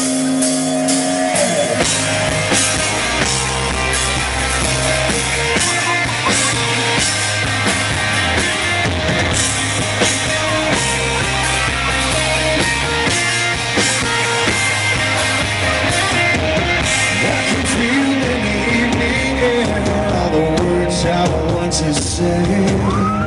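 Live rock band playing a song's instrumental intro on electric guitars and drum kit, loud and steady, heard from the audience.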